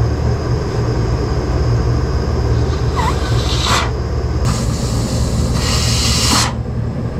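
Pressurised gas let out of a cylinder and blown through an air-conditioner's condenser coil to flush it: a short hiss about three seconds in, then a longer, stronger hiss from about four and a half seconds that cuts off about two seconds later. A steady low machinery rumble runs underneath.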